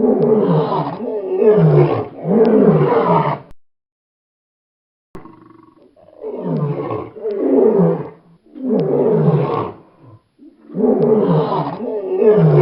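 A large animal roaring: a series of deep, loud roars of about a second each, with a pause of a second or two about four seconds in before the roars start again.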